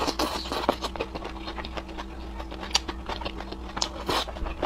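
A person eating close to the microphone: chewing and slurping noodles, with many small wet mouth clicks. Longer, noisier mouthfuls come near the start and about four seconds in.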